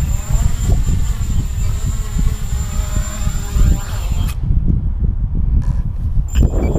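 Mini quadcopter's Tiger MT1306 brushless motors and 6x2 props whining, the pitch bending up and down, over heavy wind rumble on the onboard microphone. About four seconds in, the motor whine cuts off and only the wind rumble goes on, until a brief knock near the end.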